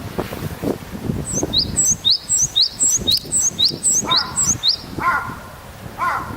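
Japanese tit singing a fast repeated two-note phrase, a high falling note then a rising one, about two phrases a second, starting about a second in and stopping about five seconds in. From about four seconds in, another bird's lower, harsher call repeats about once a second.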